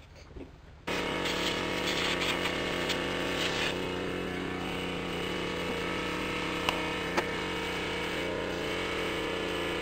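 A small machine's motor switches on about a second in and runs steadily at an even pitch, with two short clicks around the middle.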